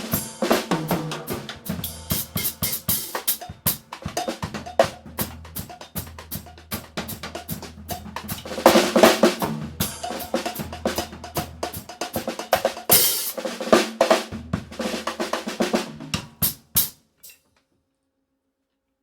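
Drum kit with cowbell playing a fast groove with fills over a low bass line, stopping about seventeen seconds in.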